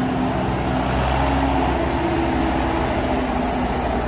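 Steady outdoor rumble with faint voices in the background.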